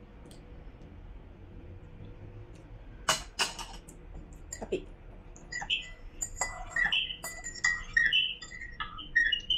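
Metal teaspoon stirring in a ceramic mug, clinking rapidly against its sides through the second half. A few sharper knocks come about three seconds in.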